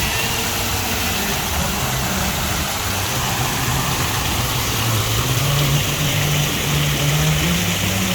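Fountain water splashing steadily, with a low hum underneath that shifts slightly in pitch after about five seconds.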